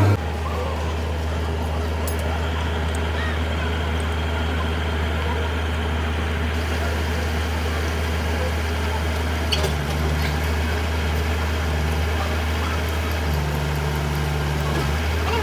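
An engine idling steadily with a low, even hum, and a brief click about ten seconds in.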